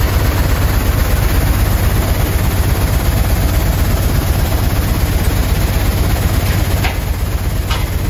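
UWT Swiss mobile desludging plant running, its vibrating dewatering screen shaking out dewatered sand. It makes a loud, steady machine noise with a strong low rumble.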